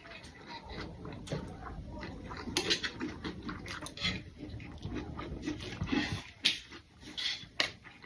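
Close-up eating: noisy chewing and smacking of fried rice and chicken, with irregular clicks and clinks of cutlery on plates.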